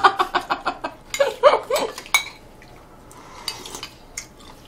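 Metal spoons and chopsticks clinking against ceramic bowls and plates during a meal, as scattered short clicks. Laughter trails off at the start, and a short vocal sound comes a little over a second in.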